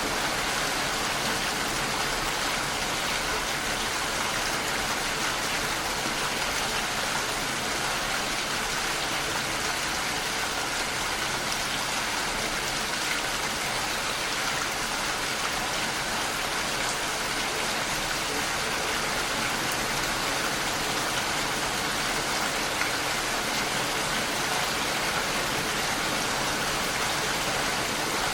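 Steady heavy rain falling, an even hiss of drops without letup.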